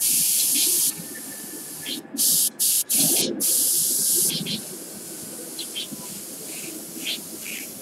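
Airbrush hissing as it sprays paint in bursts of a second or two, cut off sharply each time the trigger is released. After about four seconds the spraying stops, leaving only a few faint short puffs of air.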